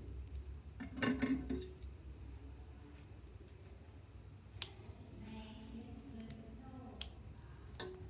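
Metal scissors snipping into a gel-bead stress ball: a quick run of blade clicks about a second in, then single sharp snips later on. Between the snips there is a soft, wet, wavering squelch as the ball is squeezed.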